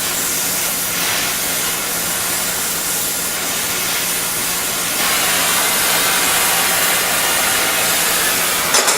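A gas torch flame burning with a steady hiss, heating the metal of a C-clamp's swivel pad so it can be crimped over. The hiss gets a little louder about five seconds in.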